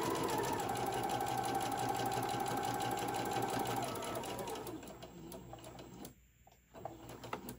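Singer Modern Quilter electric sewing machine stitching steadily with a constant whine, stopping about four seconds in. A few faint clicks follow near the end.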